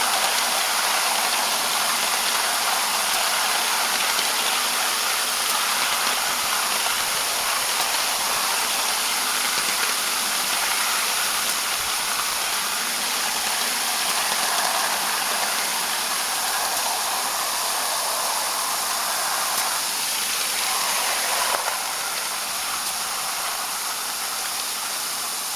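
Live-steam ride-on scale locomotive running along the track: a steady hiss of steam with mechanical rattle from the running gear and wheels. The hiss eases a little near the end.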